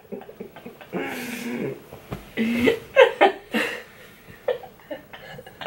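A woman laughing and giggling, with breathy, wordless voice sounds in short bursts.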